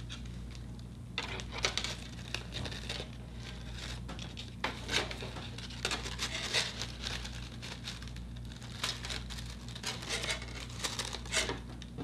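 Crepe paper petals rustling and crinkling as they are handled and pressed into place around a paper flower head, in irregular short crackles.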